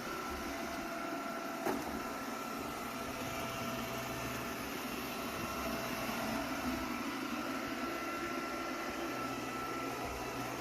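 Lubluelu L20 robot vacuum running steadily while it cleans: an even motor whir with a faint high whine, and one light knock about two seconds in.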